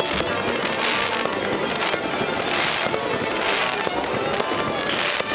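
Firework fountains hissing in several bursts of about half a second each, with music playing throughout.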